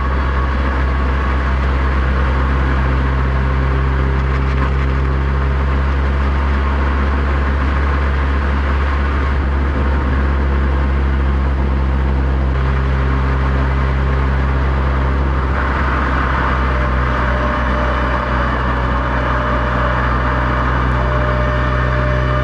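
Subaru WRX STI's turbocharged flat-four engine and road noise at a steady cruise, picked up by a microphone outside the car. A faint steady siren tone sits in the background, fading in the middle and coming back near the end.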